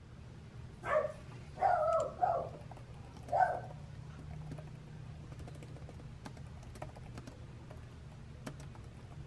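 Typing on a laptop keyboard: light, scattered key clicks over a low steady hum. In the first few seconds a few short, high-pitched calls from an animal stand out louder than the typing.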